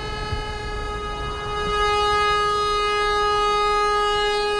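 Pipe organ holding one steady high chord, which swells louder about two seconds in.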